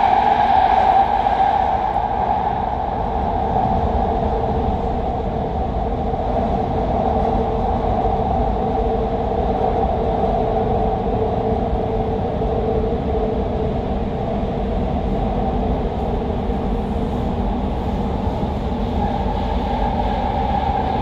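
Doha Metro Red Line train running through a tunnel, heard from inside the front car: a steady rumble of wheels on rail with a steady whine over it.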